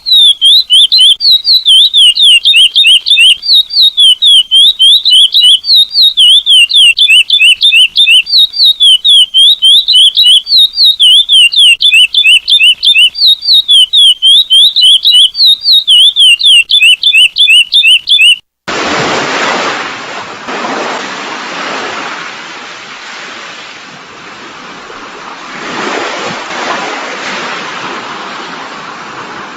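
Curió (lesser seed-finch) song of the 'selo prata' type: a loud, fast run of high sliding whistled notes, about four a second, that cuts off suddenly about eighteen seconds in. Then the steady rush of sea waves breaking.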